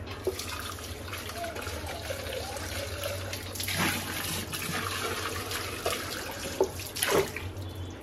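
Tap water running into a sink and splashing over a plastic vacuum dust cup as it is rinsed by hand, with a couple of louder splashes about halfway through and near the end.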